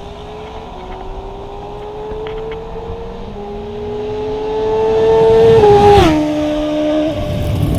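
Motor vehicle engine on a highway, its pitch climbing slowly as it grows louder, then dropping in two quick steps about six seconds in with a short rush of wind noise, over steady road noise.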